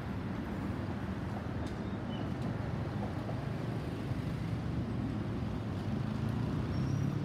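Low, steady rumble of an Airbus A320's CFM56 jet engines heard from far below as the airliner flies past at altitude, swelling slightly near the end.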